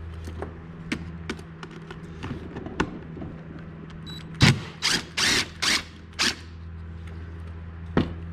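Hand-tool work on a Stihl MS250 chainsaw being dismantled: scattered clicks and taps of metal parts, a sharp knock about halfway through, then four short noisy bursts in quick succession, and a click near the end, over a steady low hum.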